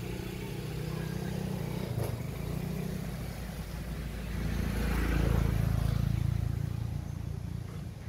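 A motor vehicle's engine running off-screen, a steady low hum that swells about halfway through and eases off again near the end.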